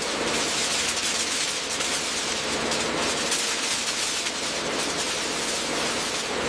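Steady, loud hissing noise with a faint crackle in it and a weak low hum underneath.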